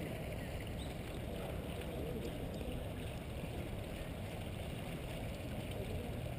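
Steady low rumble of outdoor background noise, with faint distant voices.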